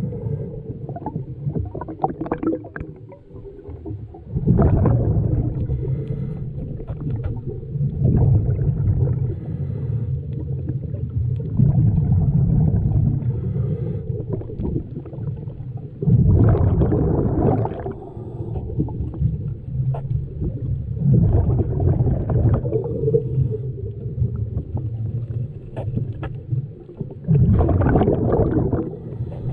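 A scuba diver's exhaled bubbles gurgling and rushing past an underwater camera housing in bursts every four to five seconds, in time with breathing, over a steady low underwater rumble.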